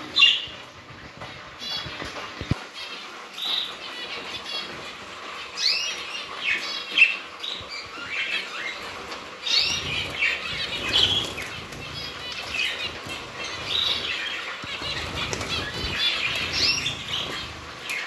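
Zebra finches in a cage calling: many short, high calls, repeated and overlapping, with bursts of wing fluttering.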